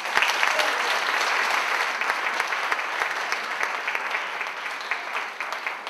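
Audience applauding. The clapping starts abruptly and thins out toward the end.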